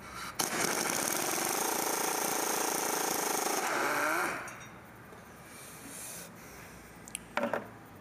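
Impact wrench hammering on a T40 Torx brake rotor retaining screw held with blue threadlocker, for about four seconds, then winding down with a falling whine as the stiff screw breaks loose. A few light clicks near the end.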